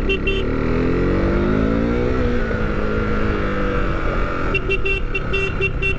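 Motorcycle engine under way in traffic, rising in pitch for about two seconds as it accelerates, then easing off, over road and wind noise. Rapid short horn beeps sound at the start and again near the end.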